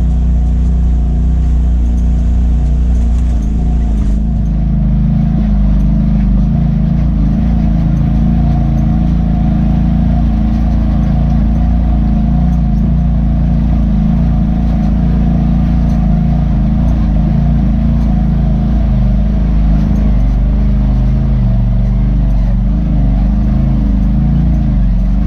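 Side-by-side UTV engine running steadily at around 3,000–3,700 rpm while the machine crawls at walking pace over a rocky trail. The pitch rises and dips a little as the throttle is worked, most noticeably near the end.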